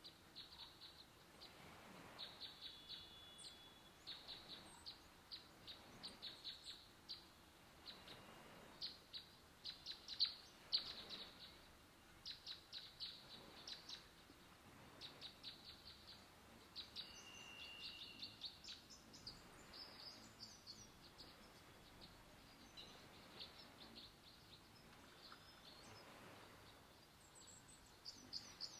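Small songbirds chirping in quick runs of high, sharp notes, one run after another, with a brief steady whistle about seventeen seconds in.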